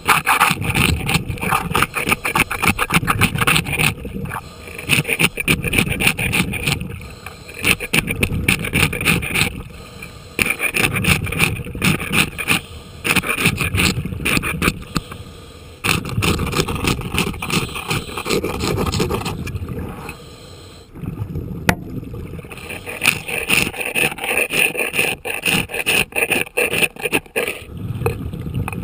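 Barnacle growth being scraped off a boat's keel underwater, in rapid rasping strokes. The strokes come in bouts of a few seconds with brief pauses between them.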